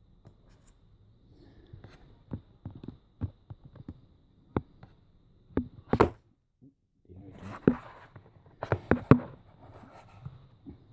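Scattered sharp clicks and taps with light scraping, from a small precision screwdriver and fingers working inside an opened Hudl tablet, undoing the tiny screws of the charging-port board. The loudest click comes about six seconds in, and a quick cluster of them comes near the end.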